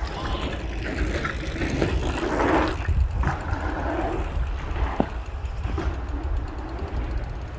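Bicycle being ridden on a trail, with steady wind rumble on the microphone, rattling, and a few sharp clicks.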